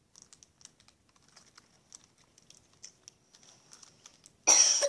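Faint, scattered wet mouth clicks and smacks of eating yogurt squeezed from a plastic tube, then a sudden loud cough near the end.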